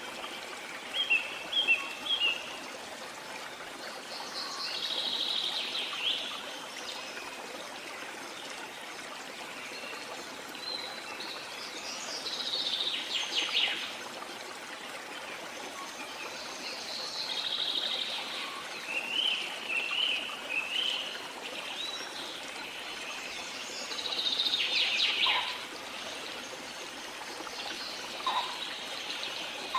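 Nature ambience: a steady running stream, with small birds chirping and singing in short bouts every few seconds.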